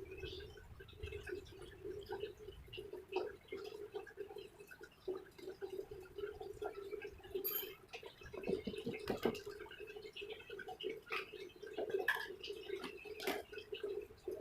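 Scattered small clicks and taps of hands handling riflescope and mount parts, a few sharper knocks in the second half, over a steady low hum.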